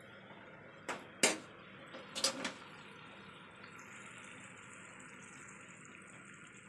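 Metal ladle clinking against the rim of a metal cooking pot a few times while stirring simmering broth, over a steady hiss. A higher hiss joins about four seconds in.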